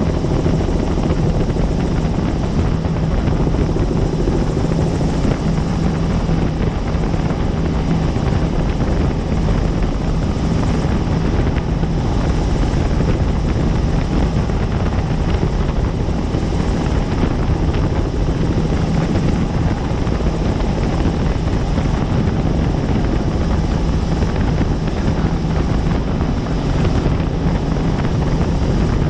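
Helicopter in flight, its rotor and turbine running at a steady, loud drone from inside the aircraft.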